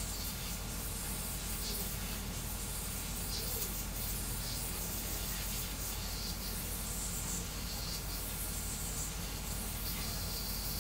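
3D printer running a fast print job: stepper motors and belts buzzing through rapid back-and-forth toolhead moves under the hiss of the cooling fans, a steady, unbroken mechanical noise. The motion is set to 400 mm/s with 7,000 mm/s² acceleration.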